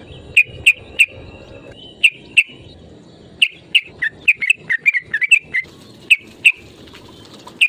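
Yellow-vented bulbul giving a series of short, sharp chirping calls in loose groups, with a faster run of notes about four to five seconds in.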